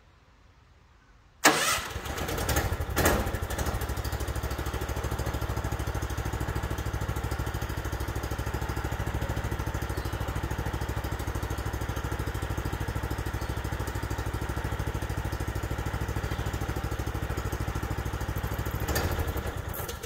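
The sawmill's new Predator gasoline engine starts about a second in and runs steadily, then winds down and stops near the end.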